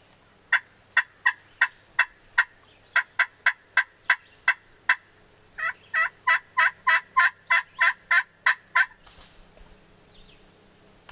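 Series of turkey yelps: about two dozen short, sharp notes in three runs, the last run quicker, stopping about nine seconds in.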